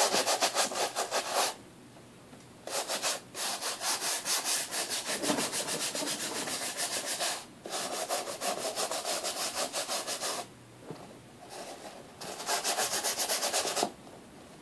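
A nail brush scrubbing a fabric baseball cap with rapid back-and-forth strokes, the bristles rasping on the cloth. The scrubbing comes in runs of a few seconds, with short pauses about two seconds in and again about ten seconds in.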